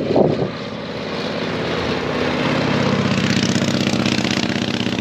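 Vintage motorcycle engines approaching and passing on the road, getting louder to a peak about three to four seconds in, with a pulsing beat in the exhaust, then starting to fade.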